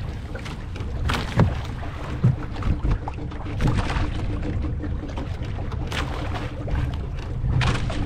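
Steady low rumble of wind on the microphone and water around a small outrigger fishing boat at sea, broken by several short, sharp noises.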